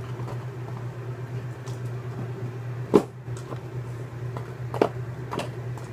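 Wooden kitchen cabinet door being opened and shut: one sharp knock about three seconds in and two lighter knocks near the end, over a steady low hum.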